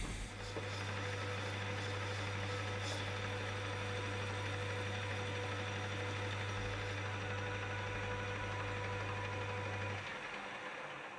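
Metal lathe starting up and running with a steady hum as a boring bar takes a light finishing cut of about 0.1 mm inside a brass bush; about ten seconds in the motor is switched off and the sound dies away as the chuck spins down.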